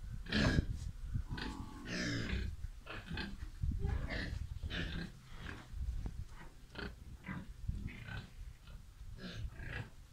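Pigs grunting, a steady string of short, irregular calls one after another.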